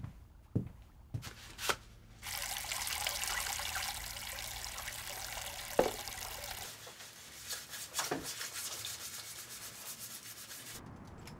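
A few light knocks, then water starts running about two seconds in as a steady rush. It runs on with a couple of knocks and stops shortly before the end.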